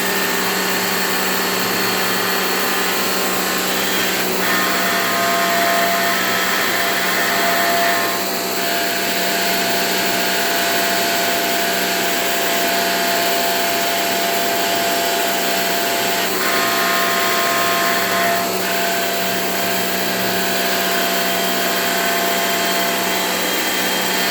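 Portable jet pump (pressure washer) running steadily, its motor whining under a hiss of water spray, as used to wash an air conditioner's coils. The tone shifts slightly a few times.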